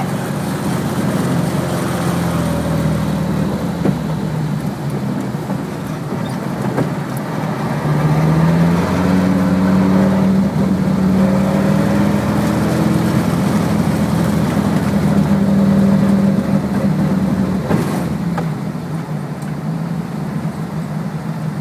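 Audi car's engine heard from inside the cabin on a fast drive over snow. The engine note rises about eight seconds in and holds high, then drops off near the end as the car slows.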